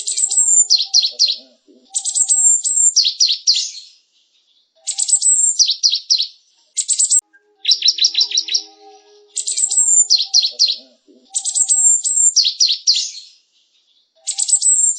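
Cinereous tit (gelatik batu) singing: phrases of rapid, high repeated notes about a second or two long, with short pauses between them, six phrases in all.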